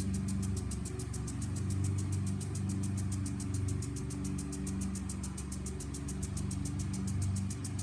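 A lawn mower engine running steadily, a low even hum, with a rapid train of high-pitched ticks, about eight a second, from a lawn sprinkler.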